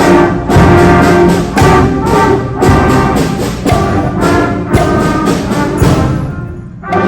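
Middle school band playing a holiday piece: brass chords with drum hits about once a second, dying away near the end before a single loud hit.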